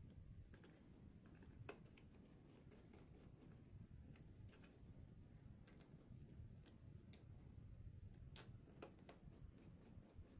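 Near silence: low steady room hum with faint, scattered small clicks and taps, irregularly spaced.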